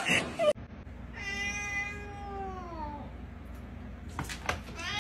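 A dog's bark cuts off in the first half second. Then a domestic cat gives a long meow that falls in pitch, and a second meow rising and falling starts near the end, just after a few light clicks.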